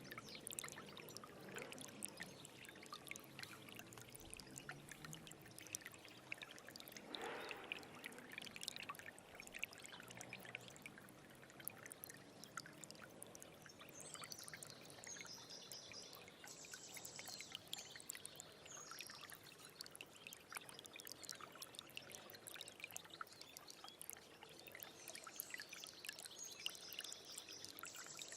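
A small stream trickling and babbling steadily over stones, faint and full of little splashes. A bird chirps high in short repeated phrases about halfway through and again near the end.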